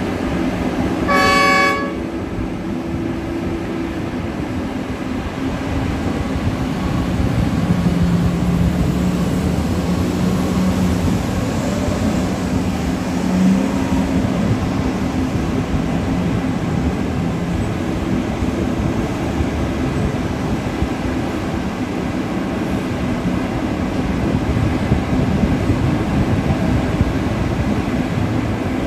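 Heavy mining machinery running steadily: the large diesel engines of a mining excavator and haul truck, with one short horn blast about a second in.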